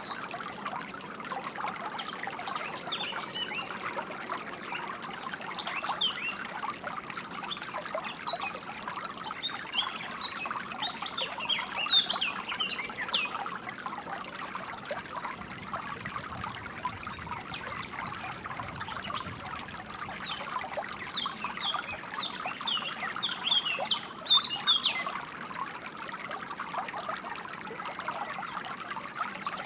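Water trickling and splashing steadily over stones in a small stream, with birds chirping in short bursts several times over it.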